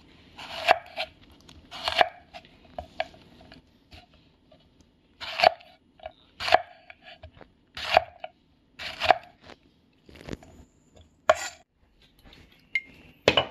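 Chef's knife slicing a jalapeño pepper into rings on a wooden cutting board: a slow run of single cuts, roughly one a second, each a crunch through the pepper ending in a knock on the board.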